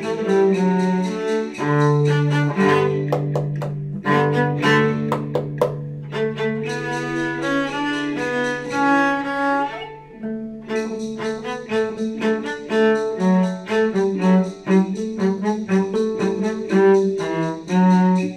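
Cello played with the bow, with other instruments sounding along with it: a long held low note runs under quicker, higher moving notes, with a short break about ten seconds in.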